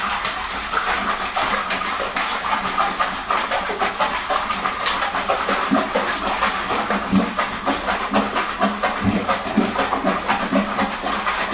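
Shower spray running steadily, hissing and splashing into a plastic tub of water as a wet small dog paddles its front legs in it.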